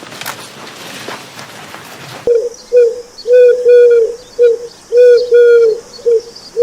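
A bird giving a rapid string of short, clear cooing calls, each slightly arched in pitch, starting abruptly about two seconds in. Before that there is only a noisy hiss.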